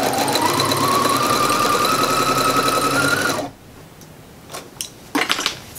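Electric domestic sewing machine stitching: the motor speeds up to a steady run, then stops abruptly about three and a half seconds in. A few soft clicks and rustles of fabric being handled follow.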